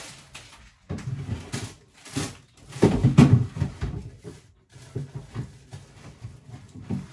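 Groceries and their plastic packaging rustling and knocking as they are put away in a fridge, with the loudest bump about three seconds in.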